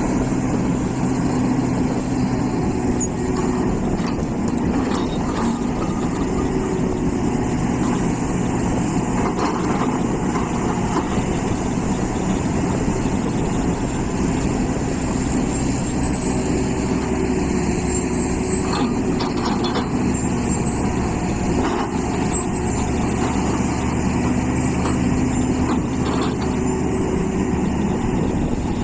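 Hitachi EX450 hydraulic excavator's diesel engine running steadily under load while it digs, with a few brief sharper sounds from the working machine.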